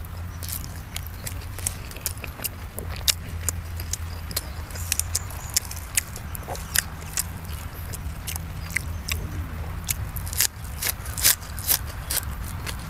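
Close-miked chewing and mouth smacking of a man eating sticky rice and Thai sausage: many sharp, irregular wet clicks over a steady low hum.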